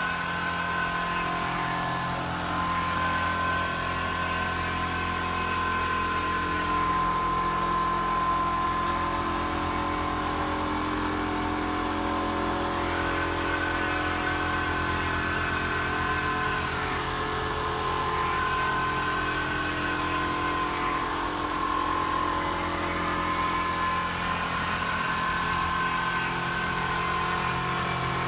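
Frame-type single-needle quilting machine running: a steady mechanical hum with a motor whine that rises and falls every few seconds.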